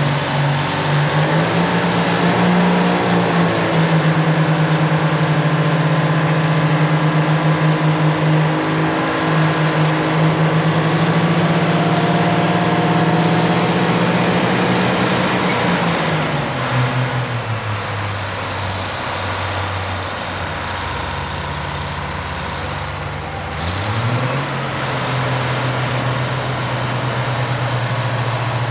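Twin Detroit Diesel 6-71 two-stroke diesel engines of a Euclid TC-12 crawler dozer, held at high revs while the dozer pushes dirt into a stockpile. About two-thirds of the way through the revs fall away to a low idle. Near the end they pick back up sharply and hold steady.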